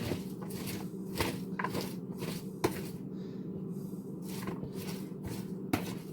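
Scattered light clicks and knocks of kitchen items being handled at a cutting board, irregular and a few to the second, over a steady low hum.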